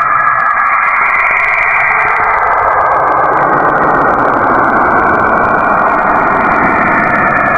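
Saturn's radio emissions converted into audio: a steady, dense, noisy drone that grows fuller in the low end about three seconds in.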